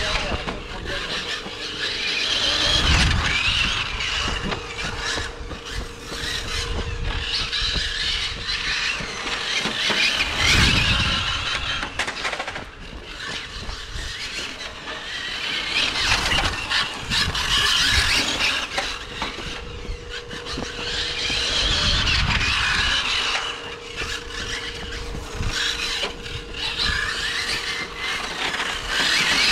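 Hobao Hyper GTS 1/8 electric RC GT car with a brushless motor on a 6S battery, running hard laps: a high-pitched whine and tyre squeal that swell and fade several times as the car comes near and goes away.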